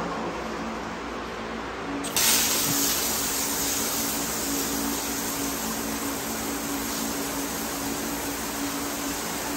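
Water spray hosing down a kennel floor: a steady hiss of spray switches on suddenly about two seconds in and keeps going, over a faint steady hum.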